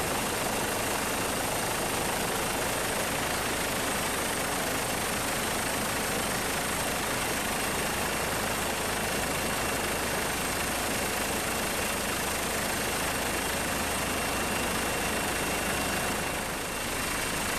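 Steady engine noise: an even, unbroken rush with two faint high steady tones, dipping slightly near the end.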